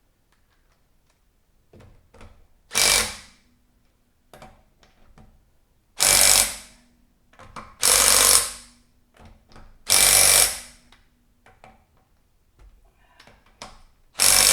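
Impact wrench running lug bolts into a wheel hub in four short bursts a couple of seconds apart, with faint clicks between them. The bolts are being run down snug on a newly fitted wheel before torquing.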